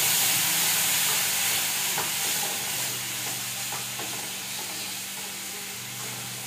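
Onions and spice tempering sizzling in hot oil in a pan while being stirred, the spoon scraping the pan a few times. The sizzle slowly gets quieter.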